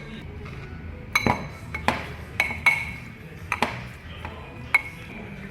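A metal spoon clinking against a bowl about seven times at an irregular pace while the vegetables are mixed into a curd marinade, each clink with a brief ring.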